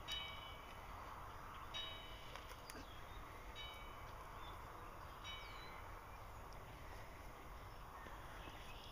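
A bird calling outdoors: four short, harsh calls evenly spaced about a second and a half to two seconds apart, stopping after about five seconds.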